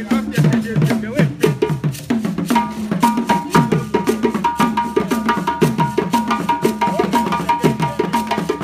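An ensemble of hand drums, tall wooden drums played by seated drummers, beating out a fast, steady polyrhythm. A high held tone comes in over the drums about two and a half seconds in.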